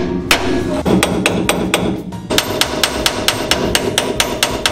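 Hammer blows on steel, knocking the rear axle housing down off its seized leaf springs: a few spaced strikes, then from about halfway a fast run of about six blows a second.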